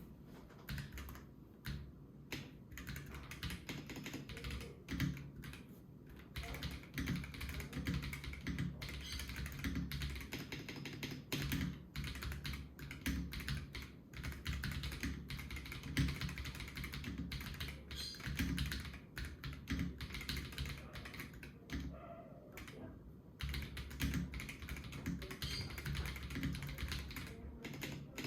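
Typing test on a gasket-mounted Akko 5075S VIA mechanical keyboard with Akko Vintage White linear switches and PBT keycaps: rapid, continuous keystrokes with a deep, muted clack, the board damped inside by silicone foam. The typing thins out briefly around the 22-second mark, then picks up again.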